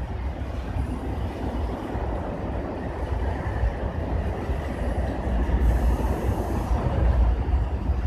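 A steady low rumble that swells louder in the second half.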